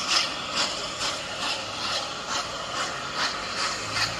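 Steam locomotive working slowly, its exhaust chuffing in a steady rhythm of about two to three beats a second over a hiss of steam.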